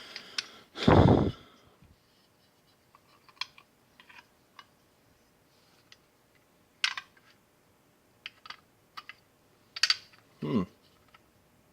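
Small metal parts of a weed eater engine being handled during teardown: scattered sharp clicks and taps, with one loud thump about a second in and a short low sound falling in pitch near the end.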